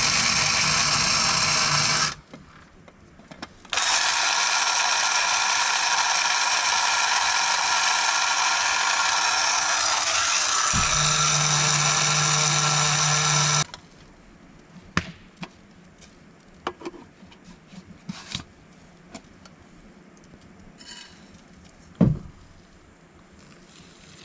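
Small battery-powered electric coffee grinder running in two bursts, a short one and then one of about ten seconds, its sound changing about eleven seconds in as a lower hum joins. After it stops come light clicks and knocks, with one sharp knock near the end.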